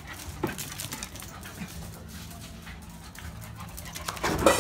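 Two Canaan dogs playing rough, with the scuffling noises of their play and a louder burst of noise about four seconds in.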